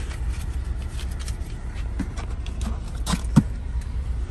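Steady low rumble with scattered light clicks and rustles, as of bills and small items being handled; two sharper clicks come a little after three seconds in.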